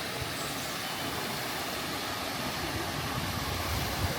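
Steady outdoor street noise with a low rumble of traffic.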